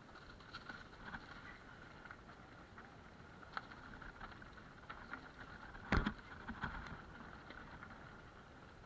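Mountain bike rattling and clattering as it rolls down a rough, rocky dirt trail, with many small ticks and knocks and one loud knock about six seconds in as the bike hits a bump.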